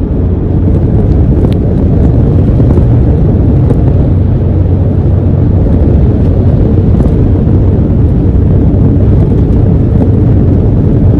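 Steady, loud low rumble of a truck driving at highway speed: engine and tyre noise, with wind on the microphone.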